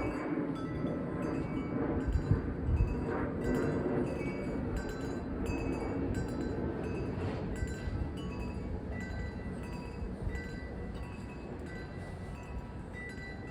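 Wind chimes ringing irregularly as gusts strike them, many overlapping bell-like notes. Wind rumbles on the microphone underneath, strongest in the first half and easing toward the end.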